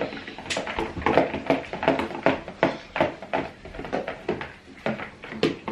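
Irregular clicks and scrapes of a utensil stirring paint into clear glue slime mixture in a bowl.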